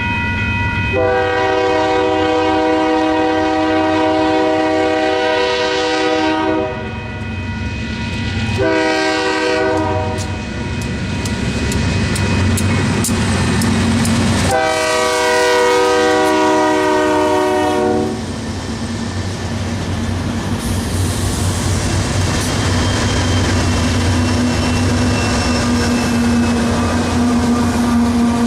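Diesel locomotive horn (GE Dash 9) sounding a long blast, a short one and another long one, the close of a grade-crossing signal, over the locomotive's engine rumble. Then the train of empty cars rolls by, with wheels clicking over the rail joints.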